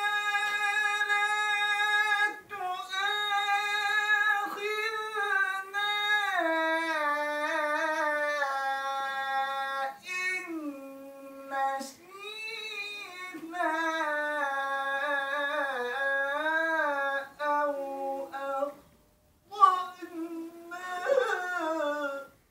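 A man's voice reciting the Quran in melodic tilawa style, holding long high notes with wavering ornaments on them. The recitation comes in long phrases, broken by two short pauses for breath, near the middle and near the end.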